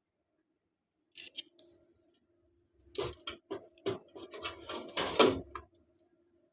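A motherboard being fitted into a desktop computer cabinet: short rubbing and clicks about a second in, then a run of clicks and scraping as the board is pushed into place, loudest near the end.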